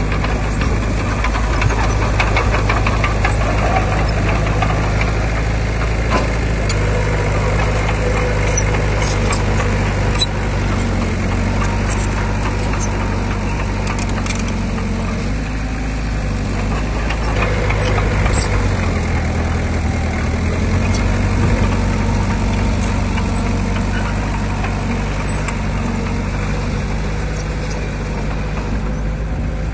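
Heavy earthmoving machine's diesel engine running steadily, its note shifting in pitch a few times, with scattered sharp metallic clicks and clanks.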